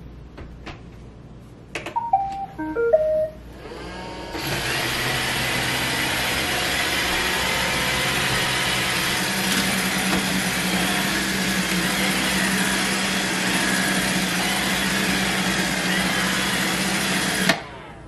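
iRobot Roomba robot vacuum weighed down with weight plates: a few clicks, then a short tune of beeps as it starts, then its vacuum motor and brushes running steadily for about thirteen seconds before cutting off suddenly near the end as the robot shuts down, which the owner suspects is from his covering its sensor.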